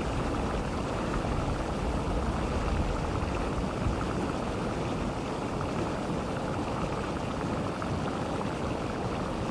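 Geothermal vent churning steadily, a dense bubbling, rushing noise with no pause.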